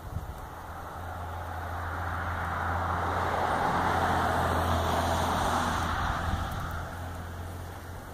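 A road vehicle passing by: engine and tyre noise swells, is loudest about four to five seconds in, then fades away, over a steady low hum.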